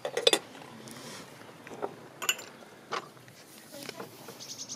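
A teaspoon clinking against china teacups and crockery: a quick cluster of clinks at the start, then a few faint, scattered clicks.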